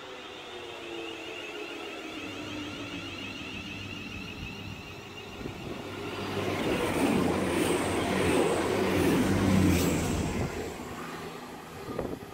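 Trains passing. An electric multiple unit's motor whine slowly falls in pitch, then a CrossCountry Voyager diesel unit runs past on the other track. Its engine hum and wheel noise grow loud from about halfway in and fade near the end.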